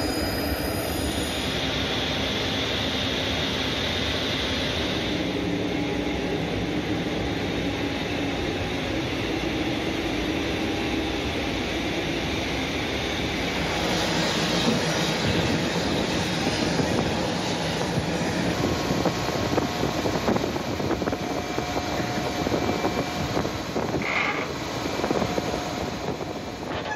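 Steady engine noise of a turboprop military transport aircraft on the apron, with a high whine through the first few seconds.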